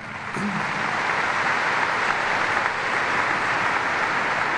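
Crowd applauding, the clapping swelling over the first second and then holding steady.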